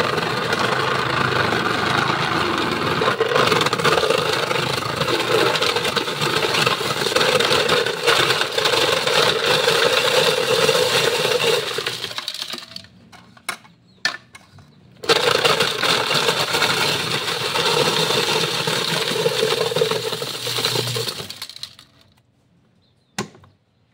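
Electric ice shaver running: its motor hums while the blade shaves ice cubes with a loud crunching grind. It runs for about twelve seconds and stops, a few sharp knocks follow, then it runs again for about six seconds and stops, with one more knock near the end.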